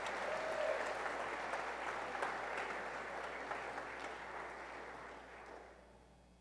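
Church congregation applauding a baptism; the clapping dies away near the end.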